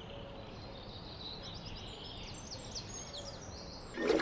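Birds singing at dawn: runs of quick, high chirps, each sweeping downward, over a faint steady outdoor hiss. Near the end the birdsong is cut off by a sudden, louder sound.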